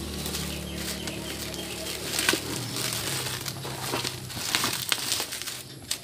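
Bubble-wrap plastic crinkling and crackling in irregular bursts as hands pull it off a cardboard box, over a steady low hum.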